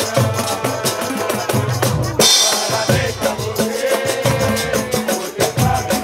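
Live samba group playing: metal surdo bass drums booming under rapid pandeiro and drum strokes, with cavaquinhos strumming over them. A cymbal crashes about two seconds in.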